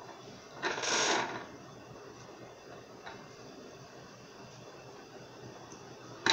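Jumper wires being handled and plugged into a breadboard: a short rustling scrape about a second in, then a faint tick and a sharp click near the end.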